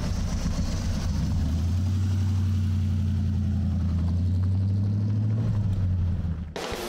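Car engine and exhaust running at a steady deep rumble, its pitch stepping up slightly about a second and a half in, then cut off abruptly near the end.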